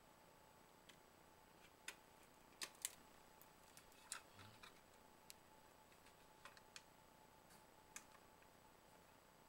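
Scattered faint clicks and taps of a plastic touch-switch unit and its wires being handled, the loudest a pair about three seconds in, over near silence with a faint steady tone.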